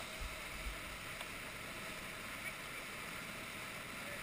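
Whitewater of a mountain torrent pouring down a rock chute, a steady rushing noise, with a couple of low bumps on the microphone about half a second in.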